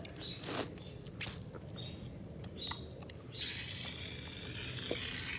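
Sticky slime being squished and kneaded by hand, with small wet clicks. About two-thirds of the way through, a loud steady spray hiss starts and lasts about two seconds, then cuts off.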